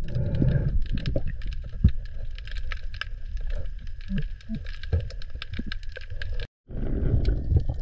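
Underwater ambience: dense crackling clicks over a low rumble, with a louder low rushing noise at the start and again near the end.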